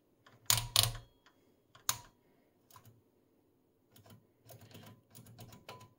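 Mechanical clicks from the front-panel controls of a 1968 Telequipment S54AR oscilloscope. First come a few loud separate clicks as the time/cm rotary switch is turned through its detents. Then, from about four seconds in, a quick run of lighter clicks as the trigger selector push buttons are pressed.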